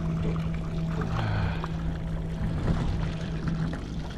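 Water pouring steadily from the overflow spout of a live-bait bucket into the sea, over a steady low hum.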